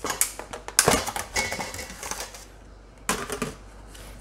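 Stainless steel cooking pot clinking and knocking on the stovetop: a run of irregular sharp metallic clicks, the loudest knock about a second in and another short cluster near three seconds.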